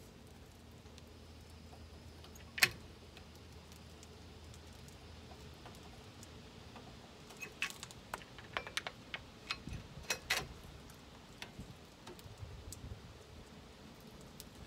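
Faint metal clicks and taps from a flathead screwdriver levering between the brake pad and rotor of a front disc brake caliper, pushing the caliper pistons back. One sharper click about two and a half seconds in, then a scattered run of light taps in the second half.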